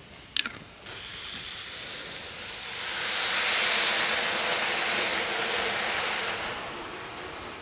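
Whiskey poured into a hot cast-iron kazan of browned beef and spices, sizzling and steaming as it hits the hot metal. A short clink comes first; the sizzle starts suddenly about a second in, grows louder through the middle and eases off near the end.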